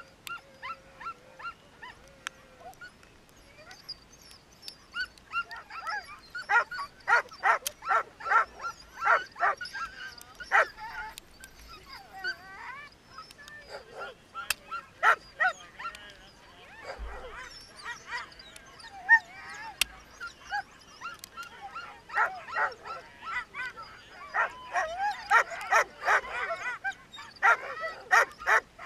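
Sled dogs barking and yipping in repeated bursts of quick calls, with wavering whines in the lulls between.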